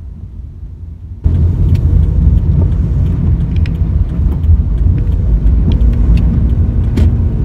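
Driving noise inside a moving car: a steady low rumble that jumps suddenly louder about a second in, with faint scattered ticks over it.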